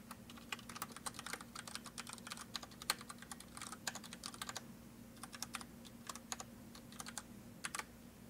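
Computer keyboard typing in quick runs of keystrokes with brief pauses between them, stopping shortly before the end.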